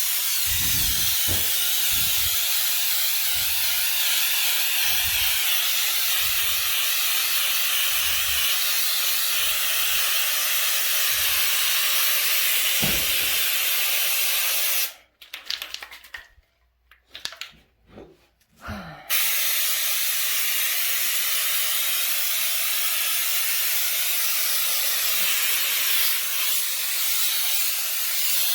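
Aerosol can of Homax spray-on wall texture hissing steadily as it sprays texture onto a wall, stopping for about four seconds midway and then starting again.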